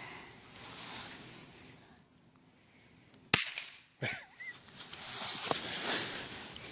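A single shot from a suppressed .22 about three seconds in: a short, sharp crack with the muzzle blast muted by the suppressor.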